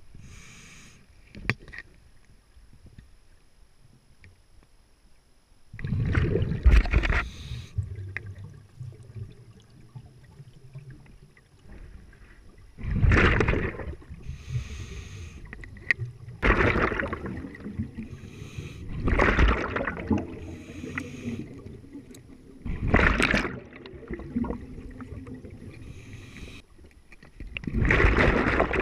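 A scuba diver breathing underwater: loud, rushing bubble bursts from the regulator exhaust on each exhale, about every three to four seconds after a quieter first few seconds, with faint hissing inhales between them.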